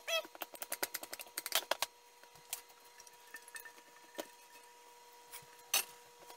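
A knife trimming pie crust around the rim of a small glass baking dish: a quick run of light clicks and scrapes in the first two seconds, then scattered taps and one sharper clack near the end as the knife is set down on a stainless steel counter. A faint steady hum runs underneath.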